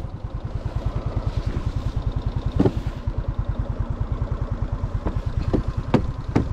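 An Aprilia scooter's single-cylinder engine running at low revs with a fast, even putter. A few sharp knocks come through, the loudest about two and a half seconds in.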